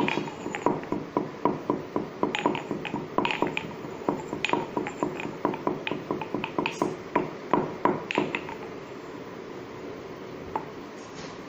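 Pestle pounding dry whole spices (dry ginger, cloves, peppercorns, cinnamon) in a small mortar: a steady run of sharp knocks, about three a second, each with a short ring. The pounding stops about eight seconds in, and a single light knock follows near the end.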